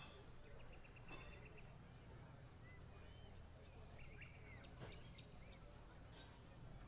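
Quiet ambience: a few faint bird chirps over a low steady background rumble.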